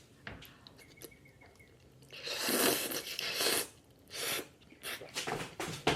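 A person slurps a mouthful of soupy instant noodles in one long, noisy draw about two seconds in, with a shorter slurp near four seconds. Wet chewing and mouth smacks follow.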